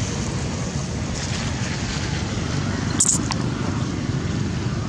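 Steady low outdoor rumble, with a brief sharp crackle about three seconds in.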